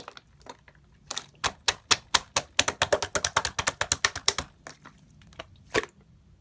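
A rapid run of sharp clicks, about eight to ten a second, starting about a second in and stopping about four and a half seconds in, with one last louder click near the end.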